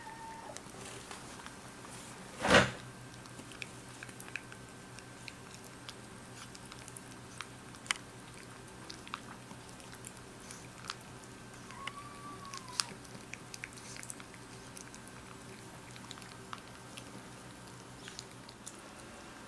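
Raccoon dog crunching dry kibble from a stainless steel bowl: a steady run of small crunches and clicks, with one loud knock about two and a half seconds in.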